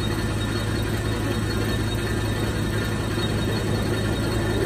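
CNC horizontal boring mill running, a steady low machine hum with an even mechanical whir over it.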